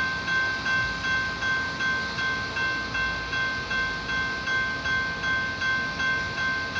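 Railroad grade-crossing bell ringing steadily, about two strikes a second, each ring fading before the next.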